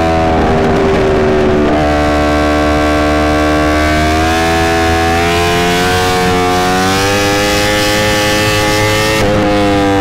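Yamaha R1's crossplane inline-four engine at highway speed, heard from the rider's seat. It eases off at the start, then pulls with its pitch climbing slowly for several seconds before the throttle is rolled off again near the end.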